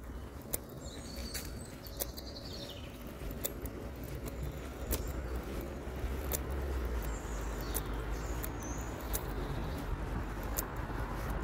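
Songbirds chirping in short phrases over a steady low rumble, with footsteps on a paved path heard as sharp clicks roughly every half second to second.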